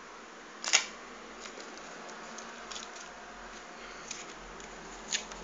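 A few short clicks from working a computer, the sharpest just under a second in and fainter ones later, over a steady low hiss.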